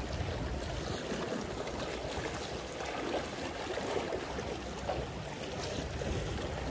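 Small sea waves lapping and washing against the rocks at the water's edge, a steady wash with a few slightly louder splashes.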